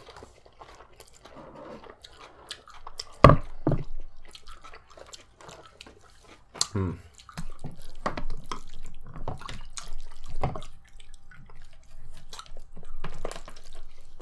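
Close-up eating sounds: irregular wet clicks and smacks of chewing, with a couple of louder sharp knocks about three and seven seconds in.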